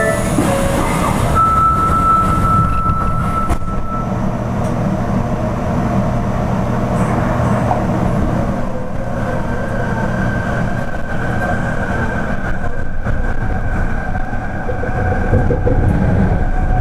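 Fukuoka City Subway Nanakuma Line train running through a tunnel, heard from inside the car: a steady low rumble of running noise, with a thin high tone briefly near the start and again from about halfway through.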